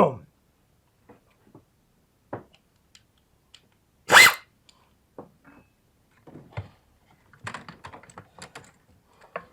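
Scattered small clicks and knocks of hand tools and parts being handled in a minivan's engine bay, with one louder sharp knock about four seconds in and a quick run of clicks near the end.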